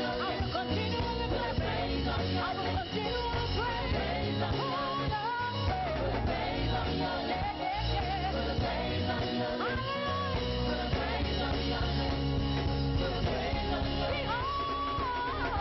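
Live praise-and-worship music: singing over a band with a steady bass line.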